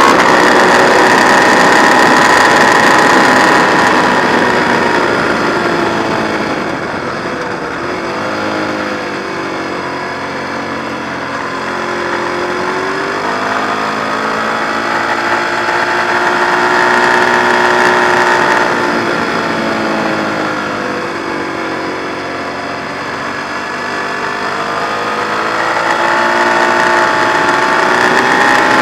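Ducati 1098's L-twin engine at speed on a race track. Its pitch falls twice as the bike slows for corners and rises again each time it accelerates back out.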